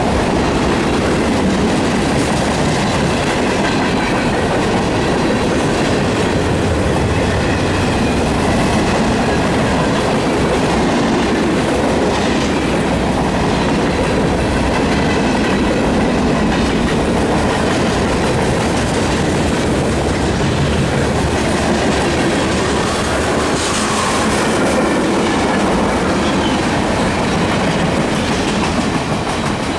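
Freight cars of a long CSX mixed freight train rolling past, with a steady rumble and the clickety-clack of wheels on the rails.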